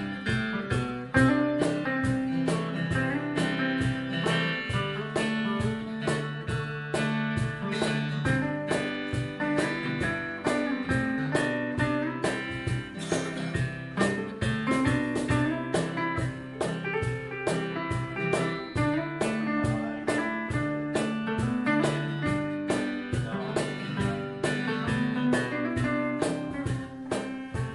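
Two guitars, a hollow-body archtop electric and an acoustic, playing an instrumental break between verses of a song, with a steady strummed rhythm and picked notes and no singing.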